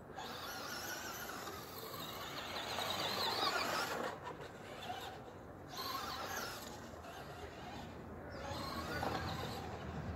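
Traxxas Rustler VXL's brushless electric motor whining, its pitch rising and falling as the RC truck speeds up and slows in three bursts, loudest about three seconds in.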